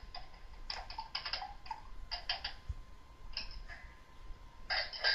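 Light clicks in short, irregular clusters, like typing on a keyboard, with a louder pair of clicks near the end.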